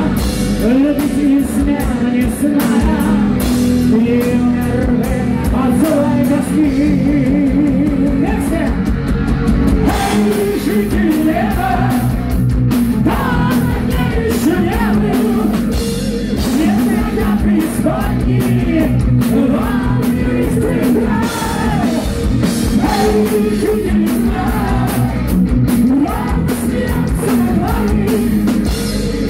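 Heavy metal band playing live: a male lead vocalist sings over electric guitars, bass and drums.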